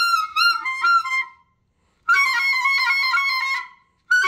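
Clarinet playing short, high, wavering phrases with bending pitch. The playing stops briefly about a second and a half in, resumes, and a new phrase starts near the end.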